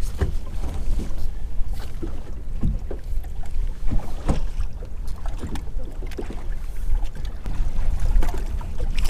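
Wind rumbling on the microphone over water lapping against a bass boat's hull, with scattered short knocks.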